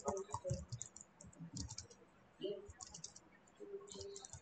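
Typing on a computer keyboard: quick keystrokes in four short bursts with brief pauses between them.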